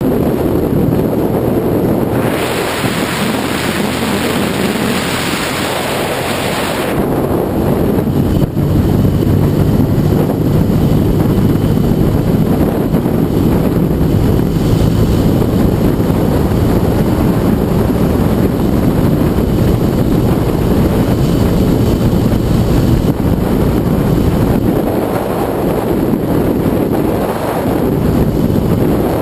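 Wind rushing over the microphone of a Yamaha TDM 850 motorcycle riding at road speed, with the bike's parallel-twin engine running steadily underneath. From about two to seven seconds in, a stronger, brighter hiss swells and then drops away.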